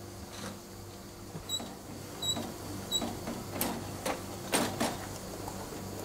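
Glass milk bottles being filled: a steady low mechanical hum with a few short, high, ringing clinks of glass, then several louder sharp clicks in the second half.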